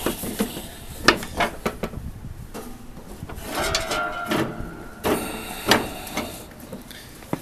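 Metal clanks, knocks and scraping from the belt, pulley and tools as a new, tight transmission belt is worked onto the variable speed pulley of an MTD lawn tractor, with a drawn-out squeaky scrape near the middle.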